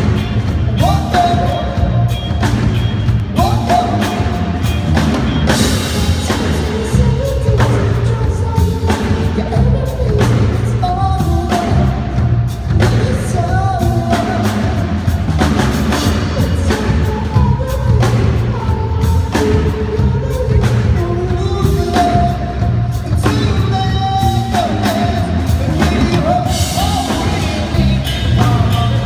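Live rock band playing through a PA: a male lead singer over electric guitar, bass guitar and a drum kit keeping a steady beat.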